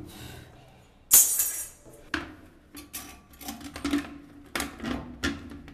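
Plastic toilet seat and lid being handled and set onto a ceramic commode: a sharp clatter about a second in, then a run of lighter knocks and taps as it is positioned.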